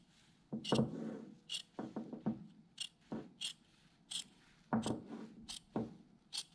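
Large tailor's shears cutting through jacket canvas, trimming away the seam allowance along the front edge: a series of short snips of the blades, roughly two a second.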